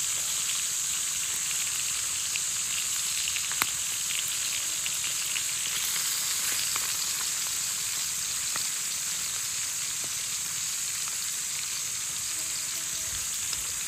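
Small squid rings frying in oil in a pan: a steady sizzle with scattered crackles and one sharper pop a few seconds in.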